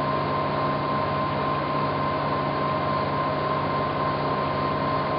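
Powered-up Bridgeport V2XT CNC milling machine running with a steady electric hum and an even high whine.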